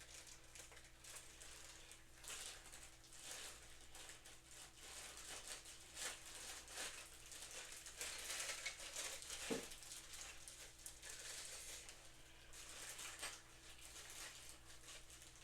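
Faint rustling and crinkling of plastic packaging bags being handled and pulled open, over a faint steady hum, with one slightly louder rustle about two-thirds of the way in.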